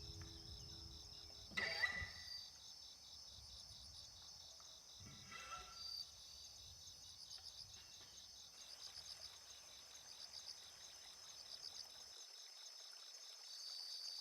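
Crickets chirping steadily in fast pulsed trills, faint, with two brief knocks about two seconds in and again around five seconds in.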